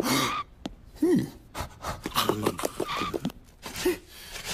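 A cartoon character's wordless vocal sounds: a string of short breathy gasps, pants and grunts.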